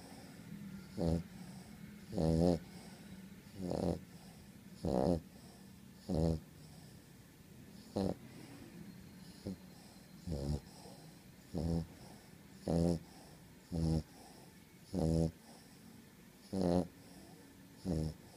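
Sleeping dog snoring loudly, one snore about every 1.2 seconds. Each snore is a short buzzing tone with a wavering pitch.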